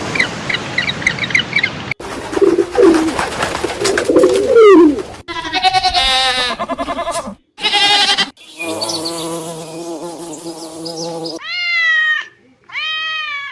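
A montage of animal and bird calls cut one after another every couple of seconds: a quick run of short high chirps at first, then a series of pitched calls, a long steady call in the middle, and several rising-and-falling calls near the end.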